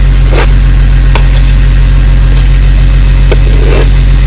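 An engine idling with a steady, loud low drone, with a few short sharp clicks or knocks over it.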